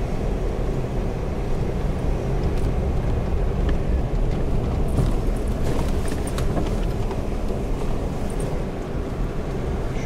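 Car driving slowly on an unpaved dirt road, heard from inside the cabin: a steady low rumble of engine and tyres, with scattered light clicks and rattles around the middle.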